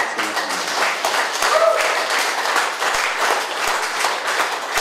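Applause: a group of people clapping their hands, a dense patter of claps.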